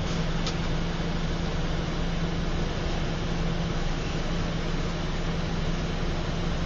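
Steady engine and road noise of a moving long-distance bus, heard inside the passenger cabin, with a constant low hum underneath.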